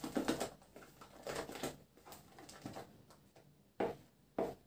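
Silicone spatula stirring and scraping whipped cream in a plastic bowl: soft, irregular, squelchy strokes, then two sharper knocks near the end.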